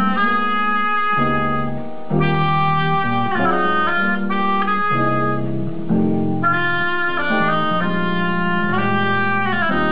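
Oboe playing a slow melody of held notes over grand piano chords, with short breaks between phrases.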